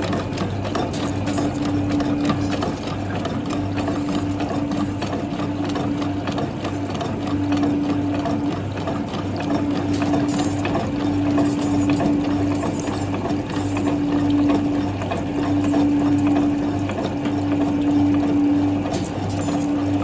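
Printing-plate washing machine running, its conveyor and cleaning brushes turning steadily. A low hum sits under a tone that comes and goes about every second and a half, with fine mechanical clicking throughout.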